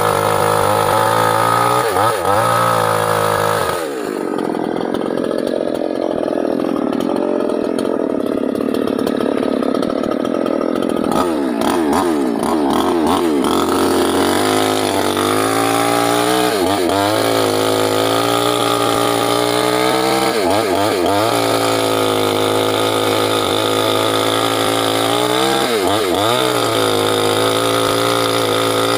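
Small two-stroke mini chainsaw running at high revs; from about four seconds in its pitch drops and it bogs under load for several seconds as the chain cuts into teak, then it revs back up. After that the throttle is eased off and opened again several times.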